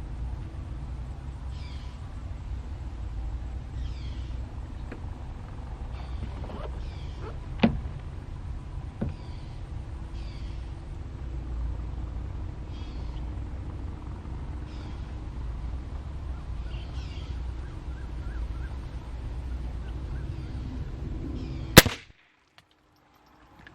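A single sharp .22LR rifle shot near the end, far louder than anything else, after which the sound cuts off abruptly. Before it there is steady outdoor background with a bird chirping every second or two and a couple of small clicks.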